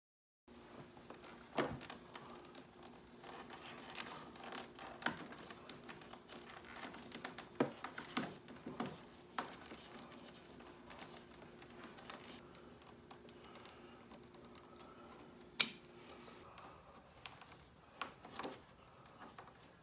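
Hands fitting a trim strip along a boat's gunwale edge: irregular clicks, taps and rubbing as the trim is pressed and worked into place, with one sharp snap about 15 seconds in, the loudest sound. A steady low hum runs underneath and stops about 16 seconds in.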